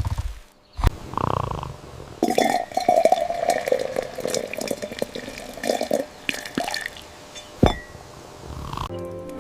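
Water splashing and dripping, a run of small irregular splashes and clicks, with one sharp knock near the end.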